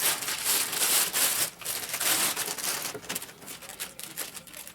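Packaging being handled: irregular rustling and crinkling, louder for about the first three seconds, then softer.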